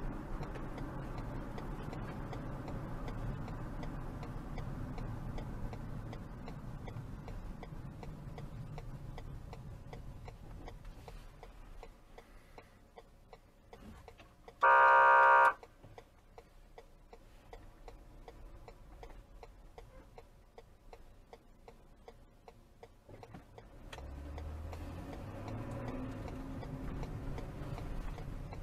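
Low road and engine noise inside a moving car fades as the car slows to a stop. About halfway through, a loud one-second electronic beep or horn tone sounds, and the road noise comes back near the end as the car moves off. Faint regular ticking runs throughout.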